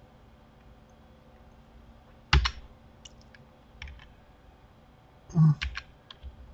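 Computer keyboard keys and mouse buttons clicking as shortcuts are pressed: a handful of separate clicks at uneven intervals, the loudest about two seconds in, with a short cluster near the end.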